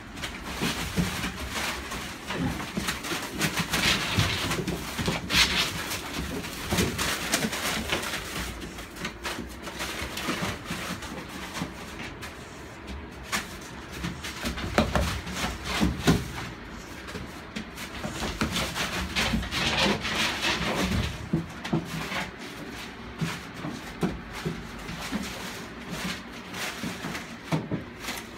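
Pit bull-type puppies scrabbling at a plywood pen wall: claws scratching and knocking on the wood in irregular strokes, with small animal noises now and then.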